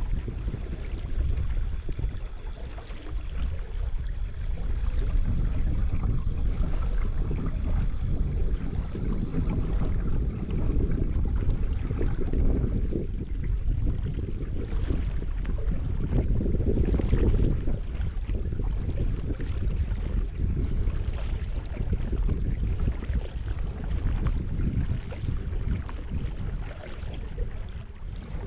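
Wind noise on the microphone, a low, fluctuating rush, over river water lapping against a kayak's hull as it drifts downstream.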